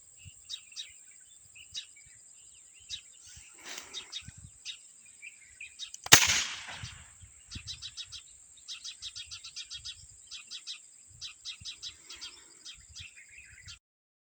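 Many short bird chirps over a steady high-pitched insect drone, with a single sharp crack about six seconds in that fades over about a second.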